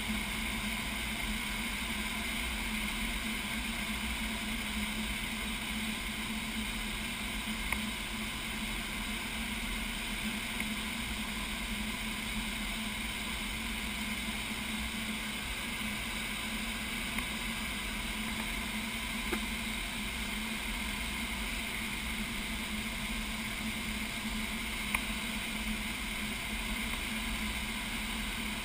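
Steady rush of air over the canopy inside a glider's cockpit in flight, with a few faint clicks.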